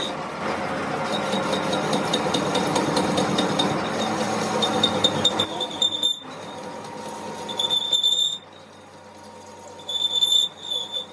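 Metalworking tool noise: a steady rasping for about five seconds, then a high-pitched squeal that starts and stops several times.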